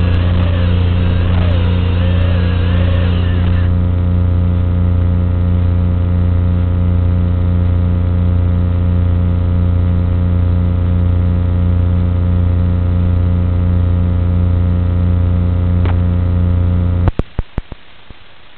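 Steady low electrical buzz on the analog FPV video link's audio, heard through the goggles' recorder. For the first few seconds a wavering whine from the racing drone's motors rides on it, stopping about four seconds in. Near the end the buzz cuts off with a few clicks, leaving a quieter hiss as the video signal drops to static.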